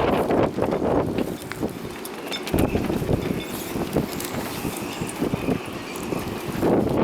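Gusty wind buffeting the microphone in uneven surges, with a faint thin high whistle in the middle.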